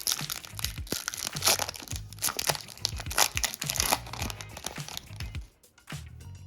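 A trading card pack wrapper being torn open and crinkled in the hands, a dense crackling that dies down about four and a half seconds in.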